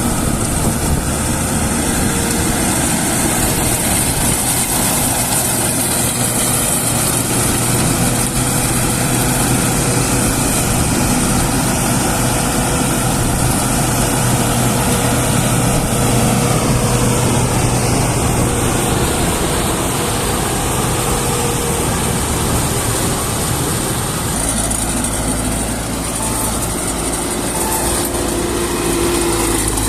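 Farm machinery engine running steadily under load with mechanical clatter, typical of a combine harvester at work. The low engine note changes abruptly about three-quarters of the way through.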